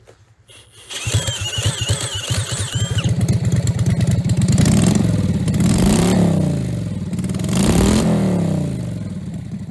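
Home-built 60-degree V-twin minibike engine with a makeshift stainless two-into-two exhaust, cranked over by a cordless drill and catching about a second in. It then runs and is revved up and back down twice, easing back toward idle near the end.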